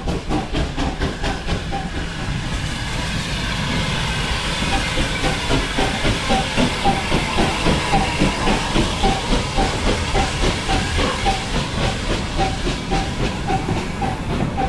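Saddle-tank steam locomotive hissing steam beside the platform, with a regular beat about twice a second setting in about four seconds in.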